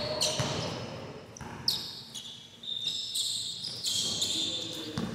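Basketball bouncing on a concrete court with short, high-pitched squeaks of sneakers from the players. One sharp ball impact about a third of the way in is the loudest.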